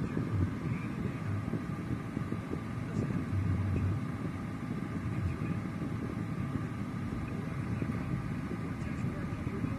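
Steady city street traffic rumble, with a faint steady hum over it.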